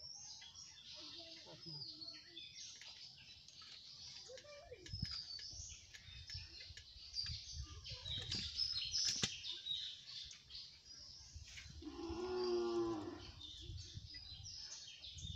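Small birds chirping throughout. About twelve seconds in comes one animal call lasting about a second, and there are a few soft knocks and thuds in the middle.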